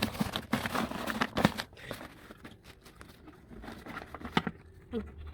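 Vacuum cleaner dust bag crinkling as it is handled and fitted into a backpack vacuum, with clicks of plastic parts. The rustling is densest over the first two seconds, then gives way to quieter handling and a few isolated clicks.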